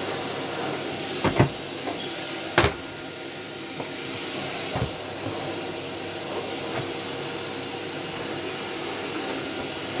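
Henry vacuum cleaner running steadily while its floor head is pushed over the carpet, with a few sharp knocks in the first five seconds, the loudest about a second and a half in and just after two and a half seconds.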